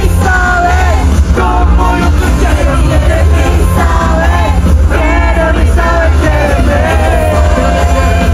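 Live concert music: a singer's voice over a loud band with heavy bass, with yells from the crowd.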